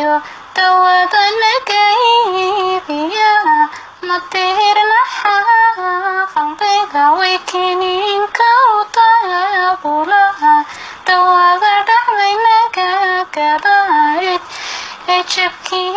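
A boy singing a Somali song in a high voice, in phrases of held, bending notes with short breaks between them.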